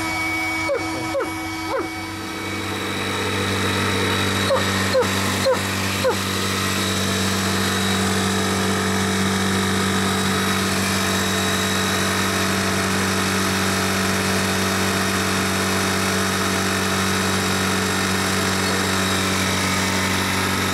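An engine runs steadily with an even hum, growing louder about three seconds in. Short falling chirps sound over it, three near the start and four a few seconds later.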